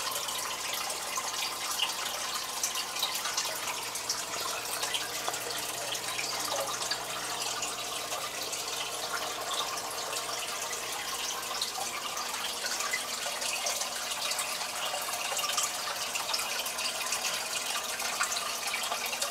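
Aquarium filter outflow pouring into the tank's water surface: a steady trickling, splashing run of water with many small drips and bubble pops. A faint low hum stops about halfway through.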